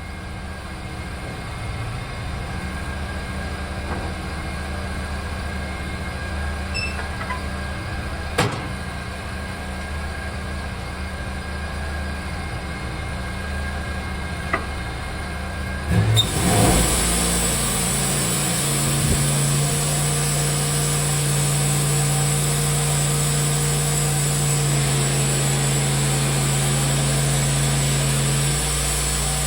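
Timberking 1400 band sawmill running: its engine runs steadily at a low speed, with a single sharp knock partway through. About halfway through there are a few clunks, then the engine speeds up and a steady high whine joins as the band blade runs.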